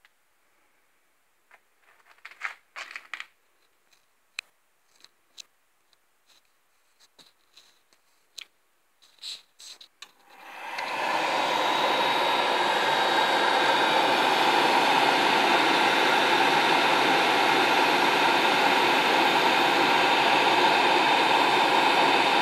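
Heating boiler's burner firing up: after a few scattered light clicks, a steady rushing roar of burner and fan builds within about a second, about ten seconds in, and holds.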